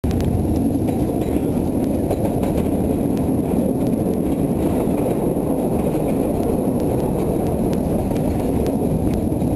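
Running noise of a narrow-gauge train heard from on board as it crosses a wooden trestle: a steady low rumble with faint, scattered wheel clicks.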